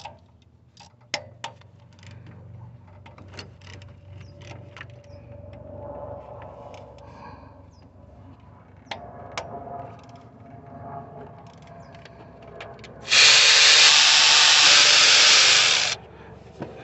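Tools clicking and knocking against metal while compressor mounting bolts are worked on. About thirteen seconds in, a power tool runs loudly for about three seconds, backing out a 12 mm mounting bolt, then stops abruptly.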